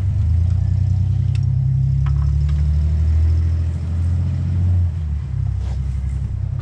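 An engine idling with a steady low rumble that eases slightly about five seconds in, with a few faint light clicks over it.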